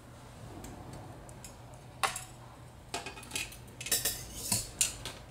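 Coloured craft wire being handled and wrapped, giving a scatter of light metallic clicks and clinks, most of them in the second half.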